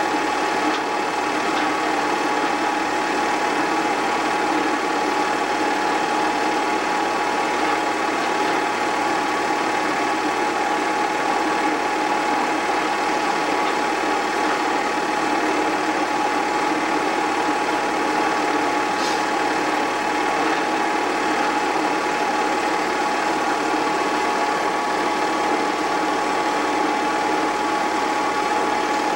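An 8mm film projector running, a steady mechanical whir with a constant pitched hum.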